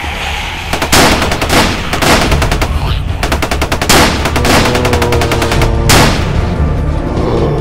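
Rapid automatic gunfire in bursts, with several single loud shots among them, beginning just under a second in. A low music drone runs underneath, and sustained tones join it in the second half.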